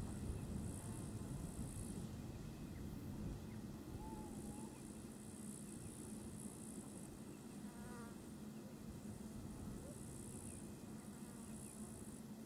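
Faint summer insects buzzing in high-pitched stretches of a second or two that stop and start again, over a steady low rumble, with a couple of brief faint bird chirps.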